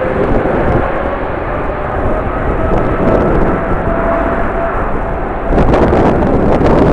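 Jet airliner engines running, a steady rumble with a faint whine, under strong wind buffeting the microphone. About five and a half seconds in, a gust makes it suddenly louder and harsher.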